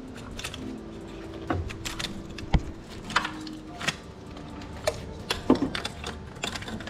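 Irregular metallic clicks, clinks and knocks of hand tools and engine-bay parts being handled, roughly one every half second to second, over a faint steady hum.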